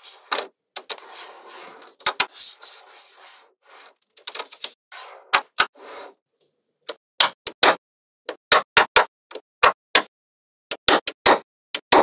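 Small magnetic balls clicking and snapping together as rows and blocks of them are joined and pressed into place. A rattling, scraping shuffle of balls in the first few seconds gives way to a run of sharp clicks from about five seconds on.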